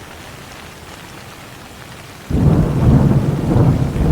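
Steady rain with a loud, low rumble of thunder breaking in suddenly a little over two seconds in.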